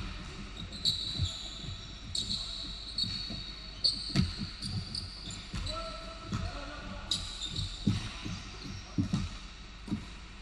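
A basketball bouncing on a hardwood gym floor in irregular thumps, the loudest right at the start, with short high squeaks of sneakers on the court several times as players cut and stop, in a large echoing hall.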